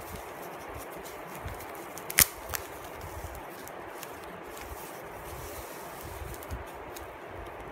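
Thin plastic poly bag rustling as hands open it, with a sharp click about two seconds in and a softer one just after.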